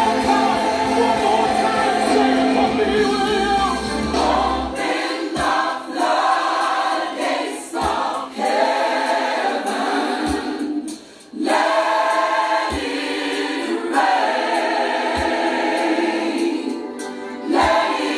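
Gospel music with a choir singing over accompaniment. About five seconds in the bass drops away, leaving a low beat roughly every two and a half seconds, with a brief dip in the sound past the middle.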